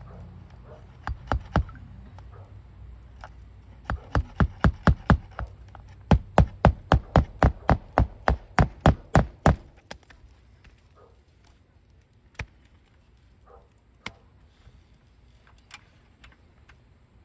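Hammer driving roofing nails into a replacement asphalt shingle: two blows, then a run of about six, then over a dozen quick blows at about four a second, followed by a few light taps.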